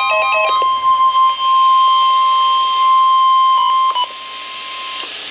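NOAA Weather Radio 1050 Hz warning alarm tone: a single steady high-pitched tone. It starts about half a second in, just as a short stepping electronic tone melody ends. It falters briefly twice near the four-second mark, continues more quietly and cuts off near the end. It is the attention signal that comes before an urgent weather warning.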